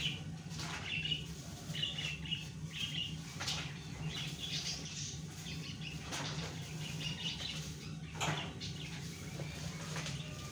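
Small birds chirping over and over, with sharp rustles and soft wet slaps as raw lungs are handled and dropped into a pot of boiling water, the loudest about a second in and about eight seconds in. A steady low hum runs underneath.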